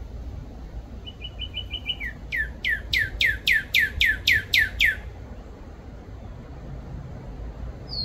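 Northern cardinal singing one phrase. A quick run of about six short, even notes is followed by about a dozen loud whistles, each sweeping down from high to low, over about three seconds.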